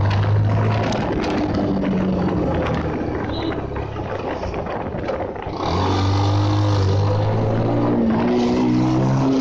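Bajaj Pulsar single-cylinder motorcycle engine running under way, with wind rush. The engine eases off for a couple of seconds mid-way, then picks up again strongly about six seconds in.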